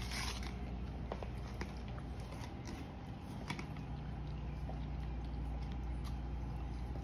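Quiet room tone: a steady low hum with faint clicks and taps scattered through, and a short rustle right at the start.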